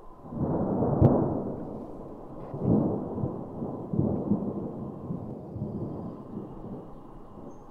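Thunder from a nearby thunderstorm: a low rumble builds, a sharp crack comes about a second in, then the thunder rolls on in two more swells that fade away.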